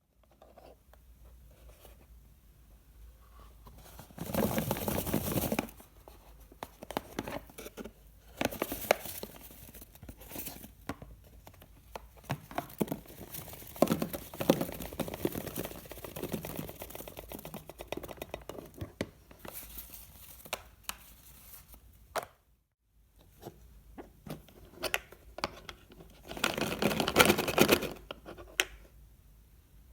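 Plastic candy packaging being handled, crinkled and torn open, with longer stretches of loud crinkling about four, nine and twenty-seven seconds in and small clicks and rustles between.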